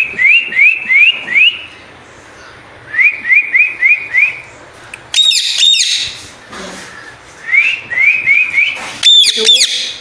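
Indian ringneck parakeet calling: three quick runs of short rising chirps, about four or five a second, and two loud harsh screeches, one about five seconds in and one near the end.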